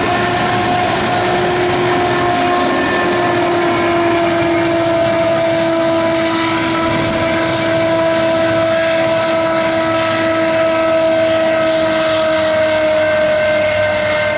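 Loaded freight train of covered hoppers rolling away over the rails, with a steady squeal of several tones from its wheels that slowly drops in pitch.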